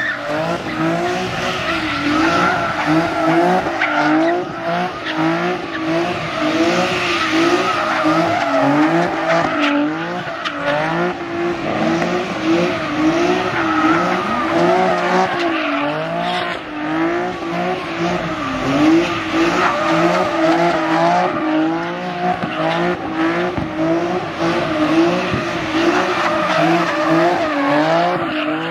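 A car drifting or doing donuts. The engine revs up and down over and over, about once a second, with the tyres squealing continuously.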